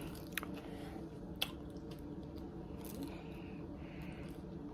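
Faint eating sounds: wet mouth clicks and squishy chewing, with two sharp clicks in the first second and a half, over a steady low room hum.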